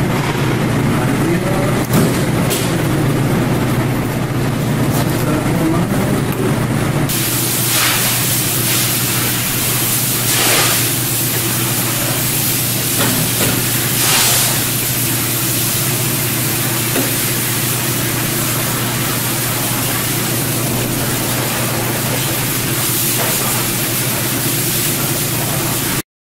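Steady machinery hum and hiss of a fish-processing room, with a few short bursts of hissing in the middle.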